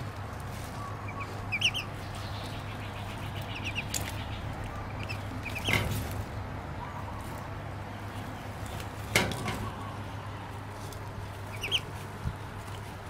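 Duckling peeping in short, high chirps that come in small clusters, with three sharp knocks, the loudest about nine seconds in.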